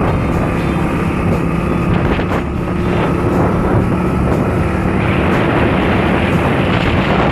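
Hero Passion Pro motorcycle's single-cylinder four-stroke engine running steadily while riding along, with wind rushing over the microphone. The rushing hiss grows stronger about five seconds in.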